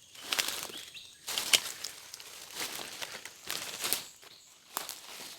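Irregular rustling and crunching of leaves and brush, in bursts about a second apart, the loudest about a second and a half in, like someone moving on foot through undergrowth.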